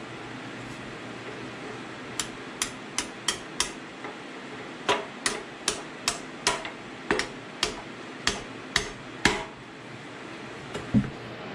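Hand hammer tapping a carrier side shim into place in a Ford 8.8 differential housing to seat the carrier: about fifteen sharp metal taps at roughly two a second, starting about two seconds in, then one harder blow near the end.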